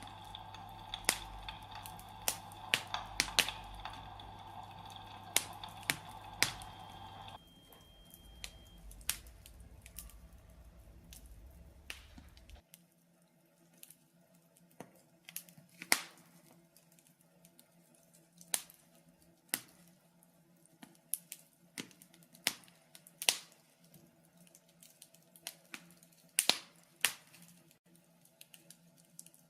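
Wood fire crackling in a fireplace, with irregular sharp pops. A steady hum runs under the first seven seconds or so and stops suddenly.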